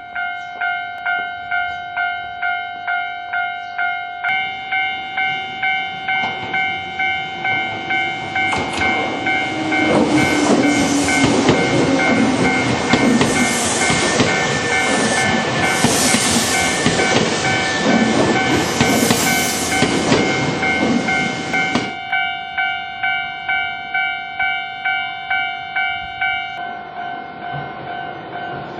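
Japanese level-crossing warning bells ringing in a rapid, steady ding-ding. An electric train on the Nankai Koya Line passes through from about eight seconds in to about twenty-two, its wheels clattering over the rail joints. The bells keep ringing after it has gone.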